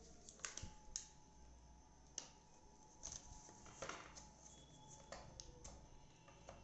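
Faint, scattered clicks and taps, about seven over several seconds, from hands handling a laptop and its controls, over a low steady hum.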